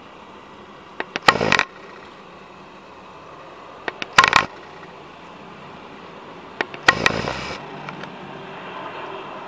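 Distant turboprop drone of a CN-295 transport aircraft on a low approach, a steady noise that grows slowly louder toward the end. It is interrupted three times, about one, four and seven seconds in, by a pair of sharp clicks followed by a short, loud burst.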